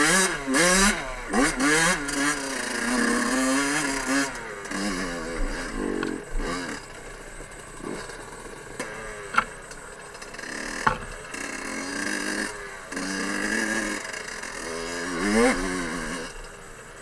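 Small two-stroke engine of a Fantic 50 Scuderia enduro bike revving up and down with the throttle, pitch rising and falling over and over, loudest at the start. About halfway through there are two sharp clicks a second and a half apart.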